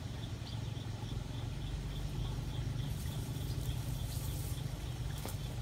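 A steady low engine hum, with a faint high ticking repeating a few times a second.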